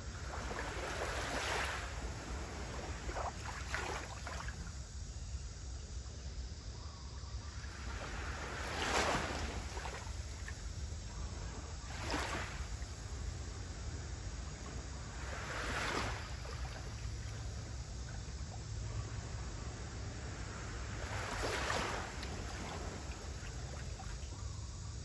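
Small waves on a calm sea lapping gently at the shore, a soft wash every few seconds, over a steady low rumble of wind on the microphone.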